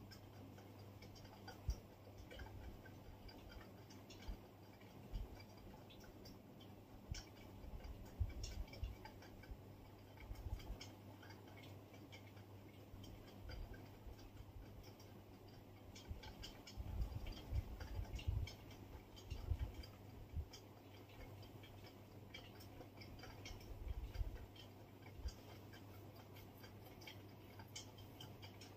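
A cat licking and grooming, heard as faint, irregular wet clicks with a few soft low bumps, over a steady low hum.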